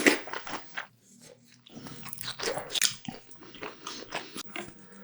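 Close-miked eating: biting and chewing with crisp, crackly clicks and wet mouth sounds, loudest right at the start, with a short lull about a second in before the chewing resumes.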